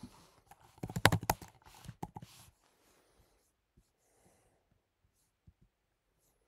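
A quick run of laptop keyboard clicks about a second in, then a few faint, scattered clicks.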